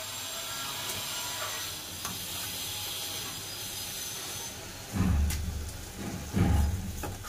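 Chicken in masala gravy cooking in a steaming steel pot: a steady hiss and sizzle while it is stirred with a steel ladle. About five seconds in come two loud, low thumps.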